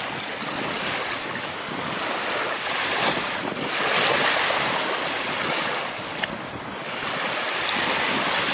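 A rushing noise like surf or wind, swelling and easing several times, with a short click about six seconds in.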